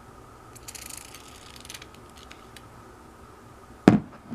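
Light clicks and handling noises as gun-cleaning solvent is applied to a Beretta 92FS's slide rails, with a brief hiss about a second in. A single sharp knock comes near the end.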